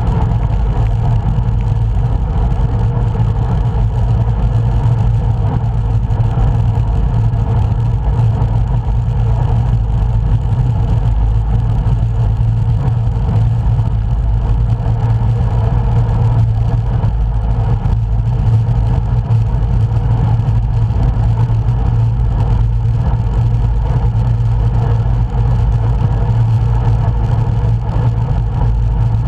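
Steady low wind rumble over the microphone of a camera riding along on a moving road bike.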